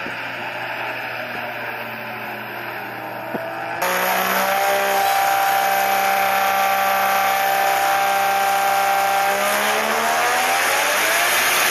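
Nissan GT-R engine sound as a recording: engine note gliding in pitch, then much louder all at once about four seconds in. It revs up, holds a steady high pitch for several seconds, and drops and climbs again near the end.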